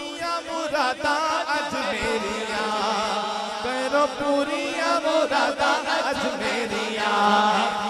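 A male voice chanting a devotional naat over a sound system in long, winding sung lines, with no words clear enough to catch.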